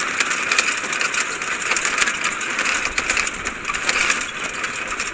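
Safari vehicle driving along a rough jungle track, rattling and clattering steadily, with a faint engine underneath.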